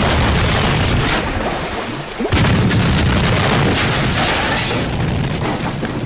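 Explosion sound effect: a loud, dense roar with a deep rumble that dips briefly about two seconds in and then surges back.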